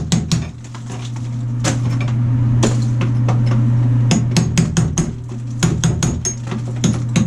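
Rapid hammer blows chipping out old ceramic wall tile and its thick mortar bed, about four to five sharp strikes a second in bursts, with a lull in the first half holding only a couple of blows. A steady low hum runs underneath.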